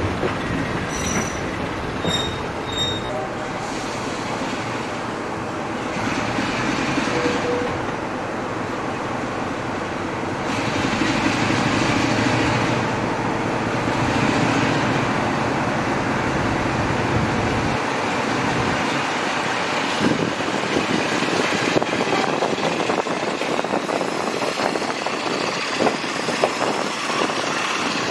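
Passenger train running along the line, heard from an open carriage window: a steady rumble of the coach wheels on the track. In the last several seconds the wheels click over the rail joints.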